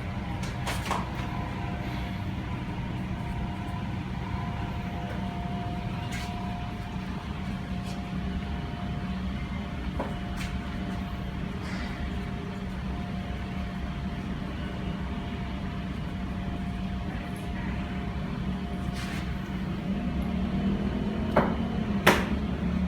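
A steady low hum with a faint high tone running through it, broken by a few light taps or clicks. The loudest two come near the end.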